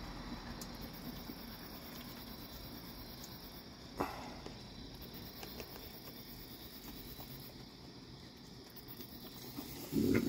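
Raccoons eating dry food from steel bowls: faint crunching and small clicks, with one sharper knock about four seconds in. A steady high insect trill runs behind, and a brief louder sound comes near the end.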